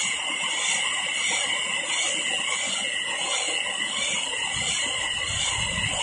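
Round silage baler and film wrapper running, a steady high mechanical whine with hiss that pulses slightly. A low rumble joins about four and a half seconds in.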